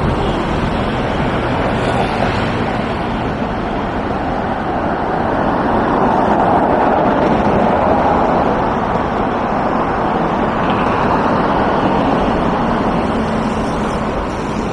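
Road traffic on a wide city street: cars passing steadily, with one swelling louder about halfway through.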